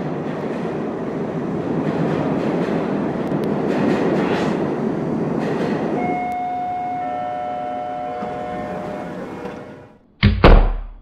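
Outro sound effects: a steady noise with several steady tones joining about six seconds in. It fades, then a loud sudden thump comes near the end.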